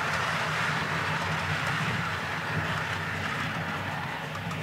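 HO-scale model passenger train rolling along the track, a steady running rattle of wheels on rail with a low hum beneath, fading gradually as the train draws away.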